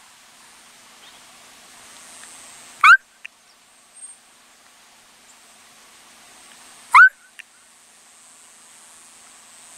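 Two loud call notes about four seconds apart, each a quick upward-sliding note followed by a short click: an imitation Gambel's quail call, sounded to draw the male quail to the caged female.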